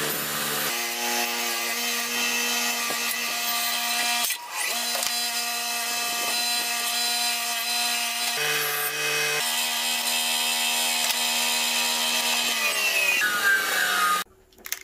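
Bench grinder running with a forged steel cross, held in tongs, pressed against its wheel: a steady grinding rasp with ringing tones that shift abruptly a few times. It cuts off suddenly near the end.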